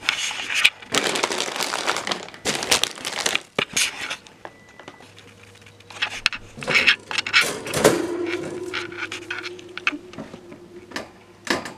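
Rustling and crinkling in irregular bursts, with a few sharp knocks, like hay and plastic being handled.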